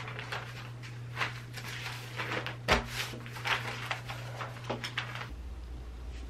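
Newspaper pages rustling and crinkling in irregular bursts as the paper is folded up, with a soft thump about three seconds in. A steady low hum takes over about five seconds in.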